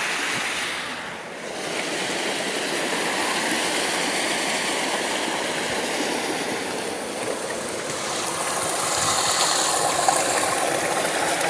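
Water running steadily down a wooden flume and splashing into a stone-walled pool.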